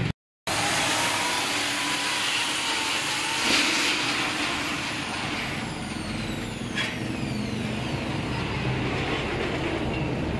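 Steady street traffic noise, with a brief complete dropout just after the start.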